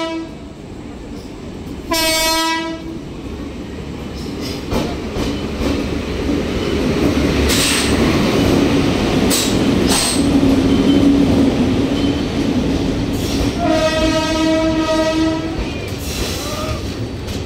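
Passenger train arriving behind an electric locomotive, which sounds short horn blasts near the start and again about two seconds in. The train's rumble then builds as the locomotive and coaches pass close by, with a few sharp clicks of wheels over the track. A longer horn blast sounds about fourteen seconds in.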